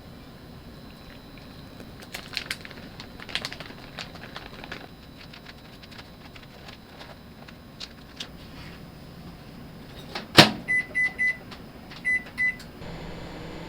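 Microwave oven being started: a door shuts with a sharp click, five short keypad beeps follow in two groups of three and two, then the oven starts running with a steady hum near the end. Scattered light clicks and knocks come earlier.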